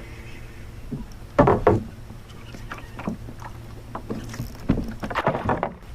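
Knocks and clatter against the plastic hull of a Hobie Outback fishing kayak as gear and fish are handled, the loudest pair about one and a half seconds in and a quicker run near the end, over a steady low rumble.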